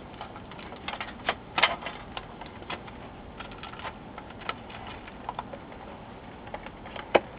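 Irregular light clicks and taps of a thin sheet-metal RF shield being fitted back onto an LCD monitor's metal chassis, with a few sharper clicks, one near the end.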